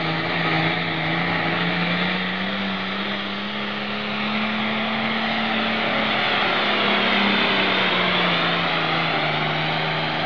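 International pulling tractor's diesel engine at full throttle, hauling a weight-transfer sled down the track. It holds one steady note, rising slightly through the middle, under a heavy rush of exhaust noise.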